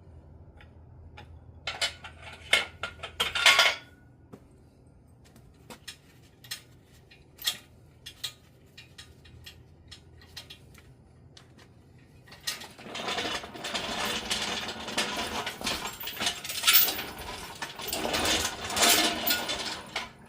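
Metal clinks and rattles from carabiners and hardware being handled while nylon seat-belt straps are undone, with scattered single clicks, then from about twelve seconds in a longer stretch of rubbing and scraping with clinks mixed in.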